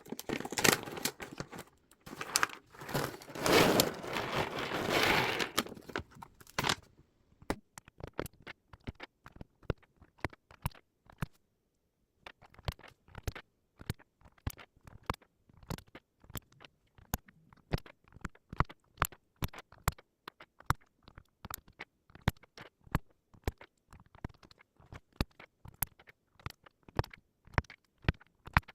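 Crinkling of packaging for the first several seconds, then a long run of short, sharp, irregular key clicks on a Zuoya GMK67 mechanical keyboard, several a second.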